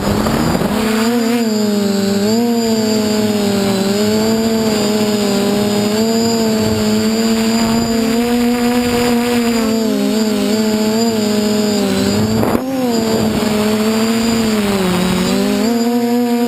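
DJI F450 quadcopter's electric motors and propellers running in flight: a loud, steady buzzing whine whose pitch wavers up and down as the throttle changes. There is a brief click about twelve seconds in.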